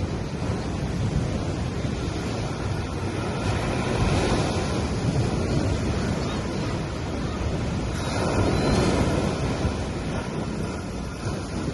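Ocean waves washing onto a beach, the surf swelling about four seconds in and again about eight seconds in, with wind buffeting the microphone.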